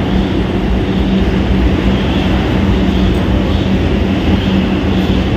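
Kolkata Metro train moving along the platform: a steady loud rumble with a constant hum running through it.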